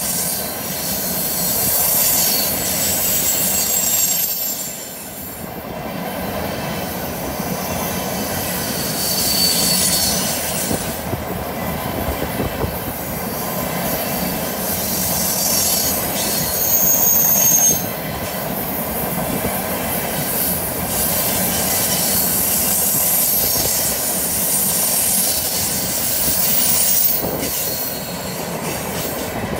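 Empty freight flatcars rolling past on a curve: a steady rumble of steel wheels on rail, broken by short, shrill squeals that come and go as the wheel flanges grind against the rail through the curve.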